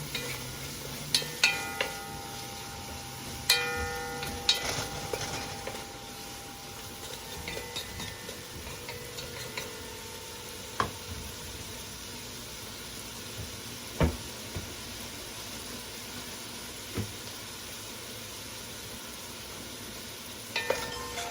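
Onion, garlic and carrots sizzling in hot olive oil in a pot while being stirred, the spoon clinking and ringing against the pot several times in the first few seconds. After that a steady frying sizzle carries on, with a few sharp pops.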